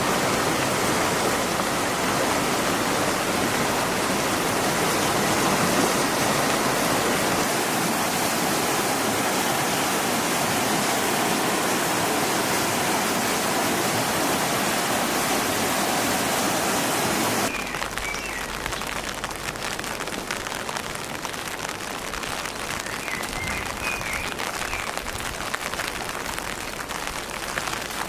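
Steady rain: a dense, even hiss of heavy rainfall that switches abruptly, about two-thirds of the way through, to lighter rain with separate drops pattering on a surface. A few faint high chirps sound over the lighter rain near the end.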